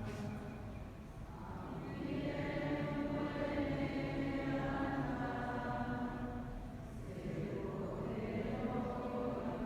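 Congregation of worshippers singing a religious chant in church, in long held notes, with breaks between phrases about a second in and again about seven seconds in.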